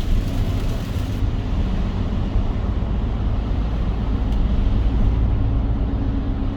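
Car driving, with a steady low rumble of engine and tyres on the road.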